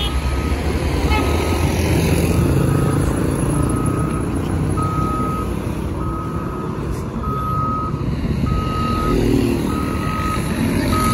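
A vehicle's reversing alarm beeping steadily, about one beep a second, over the rumble of road traffic. A motorcycle engine passes close by near the end.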